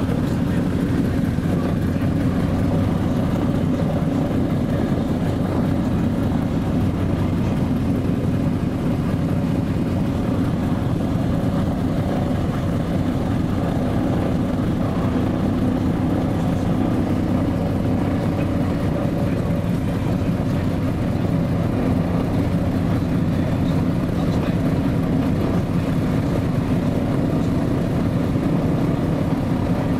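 Scottish Aviation Twin Pioneer's Alvis Leonides radial piston engines and propellers running at a steady low drone, heard inside the cabin as the aircraft taxis over tarmac.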